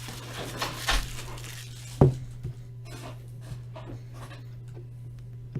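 Small handling noises on a desk: a brief rustle about a second in and a sharp knock about two seconds in, with a few light clicks, over a steady low hum.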